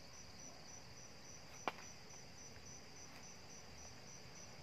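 Crickets chirping faintly in a steady, evenly pulsed high trill, with one sharp click about a second and a half in.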